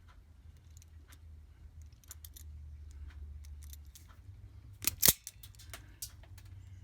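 Wire strippers clicking and snipping while insulation is stripped off the diesel heater's power wires, with one loud snap about five seconds in.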